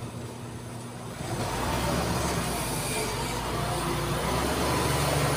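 Diesel engine of an SR-250SP-V rough-terrain crane running. It grows louder about a second and a half in, then holds steady.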